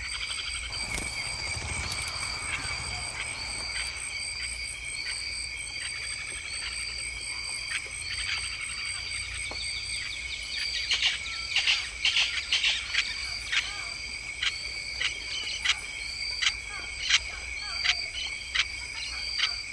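Chorus of calling insects: a steady high trill and a short rising chirp repeated a little more than once a second. About halfway through, loud, sharp, irregular chirps from another animal join in.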